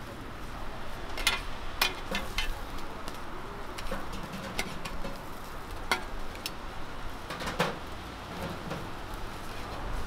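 Metal spatulas clicking and scraping on a flat-top griddle as stuffed sorghum pancakes are turned and pressed. The clicks are irregular, several a second at times, with the sharpest about two and six seconds in, over a low steady hum.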